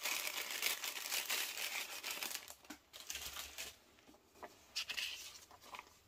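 A translucent packaging sleeve crinkling as it is opened, then a folded paper quick start guide rustling as it is pulled out and unfolded. The crinkling is dense for the first two seconds or so, then thins to lighter, scattered paper rustles and a few small ticks.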